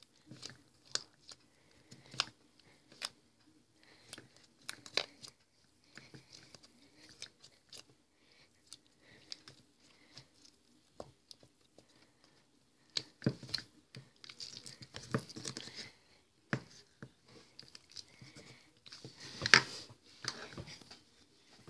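Fingers poking and squeezing stretchy slime in a plastic tub: irregular sticky squelches, clicks and pops, busier about two-thirds through, with one sharp louder pop near the end.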